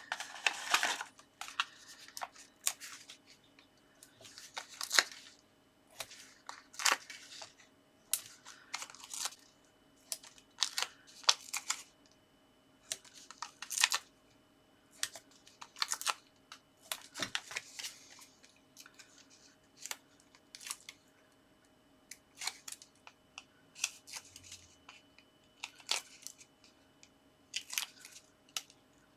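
Hands working with card and paper: adhesive foam pads being peeled from their backing and pressed on, with cardstock sliding, rustling and tapping in short, irregular scrapes and snaps.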